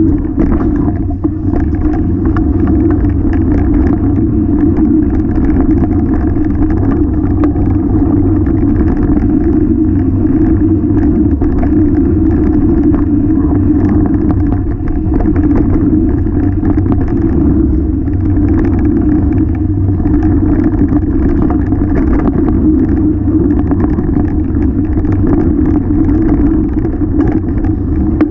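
Steady loud rumble of a Vitus Sentier 27 VRS hardtail mountain bike riding fast over rough dirt singletrack, heard through a handlebar-mounted action camera: tyre roar and vibration shaking the camera mount, with frequent small rattles and knocks from roots and loose rocks.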